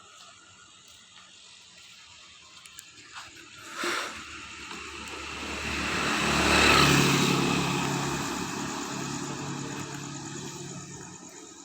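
A motor vehicle drives past: its engine and road noise swell to a peak midway and fade away near the end, the pitch dropping as it goes by. A single sharp knock sounds shortly before it.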